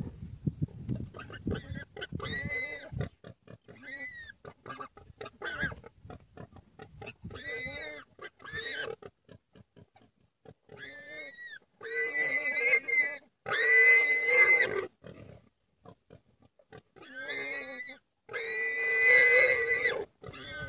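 A warthog squealing in distress while African wild dogs bite it. Short sharp cries come in the first half, then several long, loud, shrill squeals in the second half.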